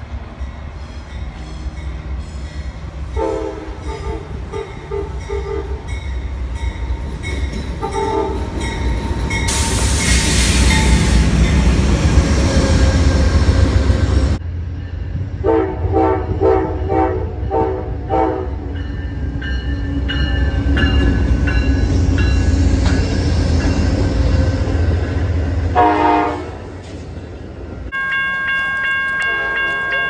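Locomotive horns played in rhythmic runs of short and long blasts, a train-horn "horn show", over the steady low rumble of a train. From about ten to fourteen seconds a loud rushing noise is the loudest thing. The sound changes abruptly twice where takes are cut together, and near the end a steady horn chord sounds.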